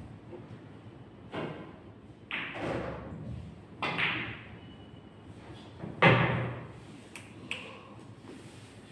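A pool shot: the cue tip taps the cue ball, then a string of sharp clicks and knocks as pool balls strike one another and the cushions, with the loudest knock about six seconds in.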